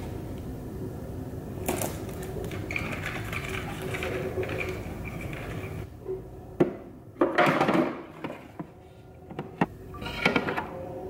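Clear plastic cellophane sleeve rustling as a photo print is slid into it. In the second half come louder, sharp crinkling crackles of the plastic as its thin adhesive backing strip is handled and the sleeve is sealed.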